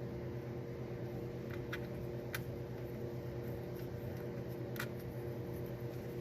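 Steady machine hum, with three faint light clicks from the small metal parts of a manual-transmission gear selector being handled.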